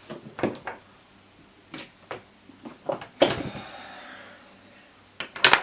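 Knocks and clatter from handling a desktop computer's parts during disassembly. A louder bang about three seconds in rings briefly, and a quick cluster of knocks comes near the end.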